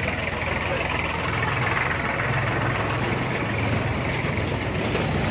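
A vehicle engine idling steadily, a constant low hum.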